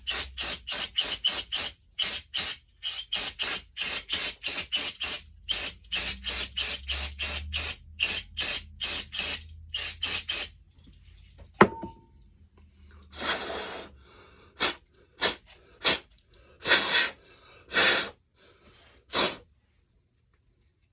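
Aerosol can of brake cleaner spraying in rapid short hissing bursts, about three a second, as engine parts are degreased. A sharp metallic click comes about twelve seconds in, followed by a few longer spurts of spray.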